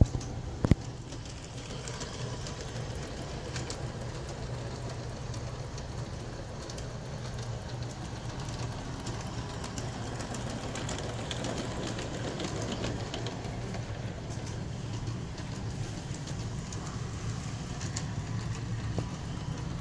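G-scale Aristo-Craft 0-4-0T train running on brass track: a steady electric-motor hum with light, irregular clicking of wheels over the rails. There is a sharp knock about a second in.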